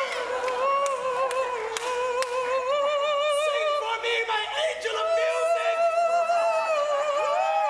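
A man singing high, long-held notes with a wide wobbling vibrato, sliding in pitch from one note to the next.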